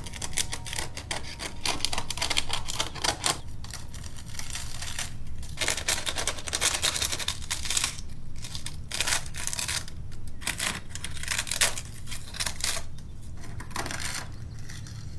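Dry papery envelope of a wasp nest crackling and tearing as its layers are pulled apart, in a dense, irregular run of crisp crackles and rips.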